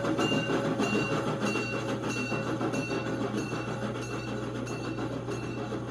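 Model train passenger cars rolling past on the track: a steady hum with rhythmic wheel clicking, slowly fading as the train moves away.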